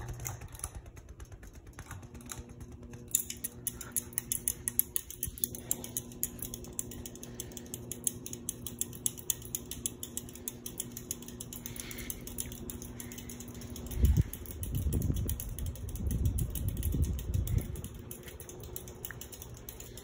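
A 1996 Hampton Bay Carousel ceiling fan running at high speed: a steady motor hum with a fast ticking over it. About fourteen seconds in there is a thump, then a few seconds of low rumbling.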